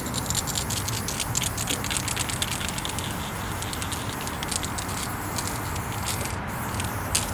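Aerosol spray-paint can hissing in short, uneven pulses as a wall area is filled in, with a brief break about six seconds in.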